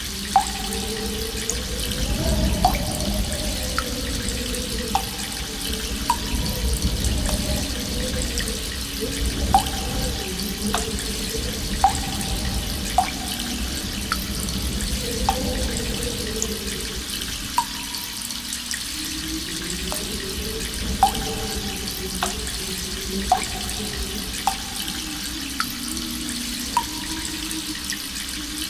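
Water drops falling one by one into a cave pool, each a sharp plink with a short ringing tone, at irregular gaps of one to two seconds. Under them runs a continuous low rumble with a slowly wavering drone.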